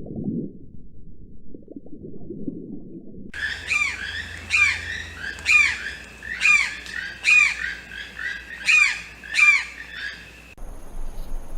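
A low rumble for about three seconds, then an abrupt switch to a bird's repeated calls: about ten short, loud, arching cries, one every three-quarters of a second, ending shortly before the end.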